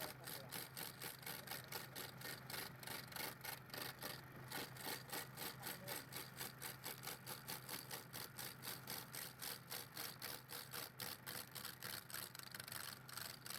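Wood being cut or scraped with a rhythmic rasping, about four to five strokes a second, over a low steady hum.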